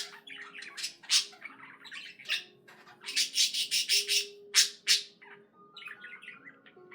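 Budgerigar chirping and squawking in sharp, loud calls. About three seconds in comes a quick run of repeated notes, and softer chatter follows near the end.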